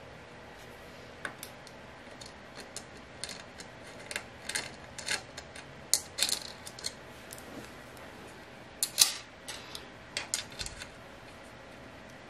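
Irregular metallic clicks and clinks as the fence and small T-slot fittings of an Incra 1000HD miter gauge are handled and fitted by hand. The loudest clinks come about three-quarters of the way through.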